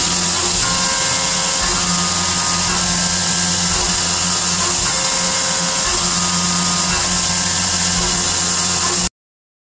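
End mill slotting a cold rolled 1018 steel plate on a CNC vertical mill: steady spindle and cutting noise with a strong hiss, and tones that come and go in a repeating pattern every couple of seconds as the tool works along the slot. The sound cuts off suddenly about nine seconds in.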